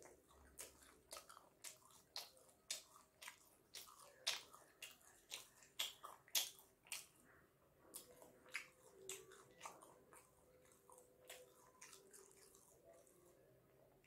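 Close-up mouth sounds of a man chewing soft steamed chicken momos: a quick run of wet lip smacks and chewing clicks, about two a second, thinning out after about seven seconds.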